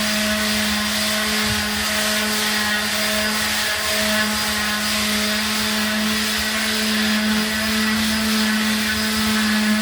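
Electric wall sander running steadily: a constant motor hum over the hiss of the pad on the wall surface.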